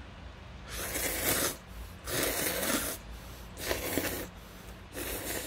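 A person slurping buckwheat noodles, four loud slurps in a row, each under a second long, about a second and a half apart.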